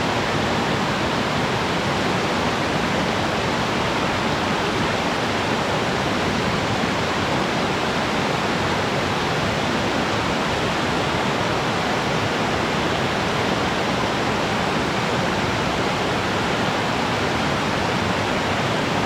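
Waterfall pouring steadily: an even, constant rush of falling water with no change in level.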